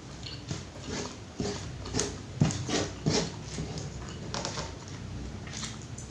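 Close-up eating sounds: a person chewing and smacking on rice with pecel and fried tempeh, in irregular clicks and smacks, loudest about two to three seconds in.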